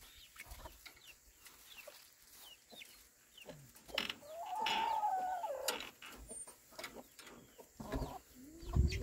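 Chickens clucking softly and in short, scattered notes while they feed, with one longer drawn-out call about four seconds in.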